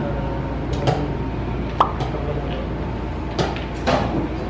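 Wooden chess pieces clacking on the board and chess clock buttons being pressed during fast blitz play: a handful of sharp, irregular clicks over a steady hall murmur.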